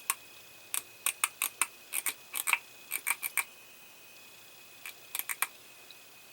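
Light, sharp clicks and taps in quick runs, several a second, from handling the model parts while CA glue accelerator ('kicker') is applied to the glued seatbelts and cables. They come over a faint steady high whine.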